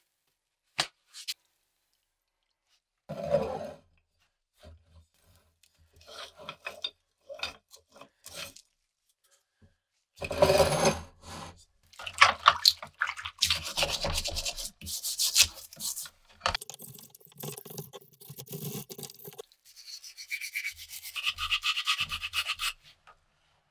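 Brush scrubbing a rusty steel bayonet blade in a plastic tub of soapy water: wet rubbing and scraping strokes that come in bouts, with a few clicks and knocks of handling at the start. Near the end a twisted-wire bottle brush scrubs inside the bayonet's scabbard.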